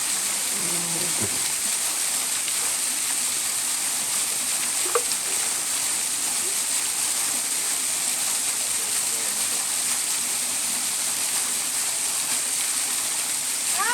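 Waterfall pouring steadily: a constant rush of falling water. A single brief, sharp pitched sound cuts in about five seconds in.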